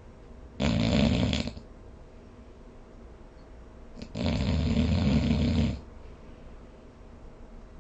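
A sleeping person snoring: a short snore about half a second in, then a longer one of about a second and a half some four seconds in, with quiet breathing gaps between.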